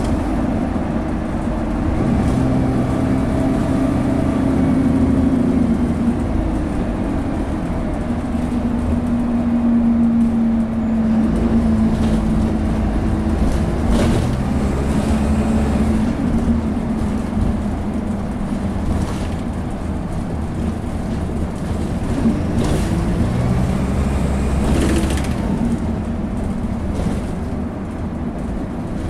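Dennis Dart bus heard from inside the saloon while under way: the diesel engine and Allison four-speed automatic gearbox running, their pitch rising and falling with the driving. A single sharp knock about halfway through and a short hiss near the end.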